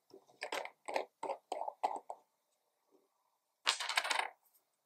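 Screw cap of a square glass Sailor ink bottle being twisted off: a quick run of short scraping clicks, then a brief louder clatter about three and a half seconds in.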